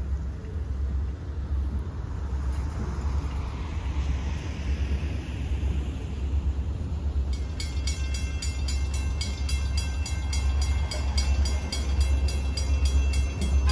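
A steady low rumble. About halfway through, a railroad grade-crossing bell starts ringing at about three strikes a second, the warning that a train is approaching the crossing.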